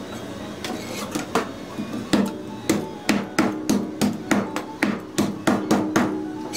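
Kitchen knife knocking against a cutting board as it cuts up a flathead: scattered sharp knocks at first, then about three a second from roughly two seconds in.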